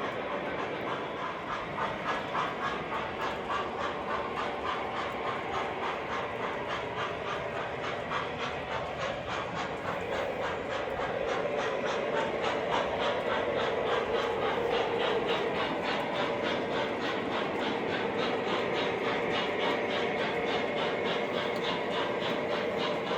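O gauge model train running on the layout, with a steady, even rhythmic beat from the locomotive's sound system and its wheels on the track; it grows somewhat louder about halfway through.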